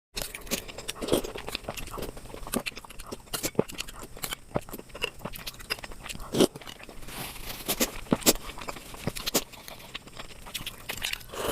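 Close-miked chewing and biting of a sweet dessert, with many irregular wet clicks and small crunches.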